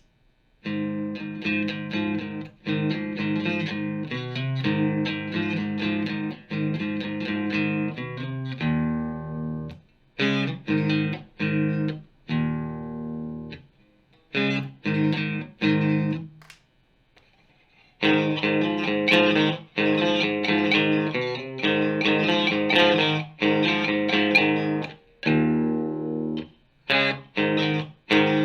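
Electric guitar played through an amp and speaker cabinet with some overdrive: a steady strummed chord riff, then a run of short separate chords with gaps between them. Partway through it stops for about a second, then the riff starts again.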